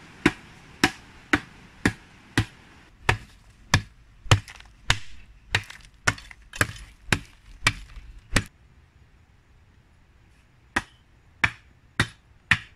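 A hand digging tool chopping into hard, stony earth: sharp strikes at about two a second, with a pause of a couple of seconds about two-thirds of the way through before the strikes start again.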